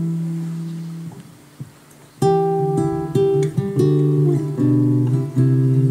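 Acoustic guitar: a chord left ringing and fading away, a short pause, then chords picked and strummed again from about two seconds in.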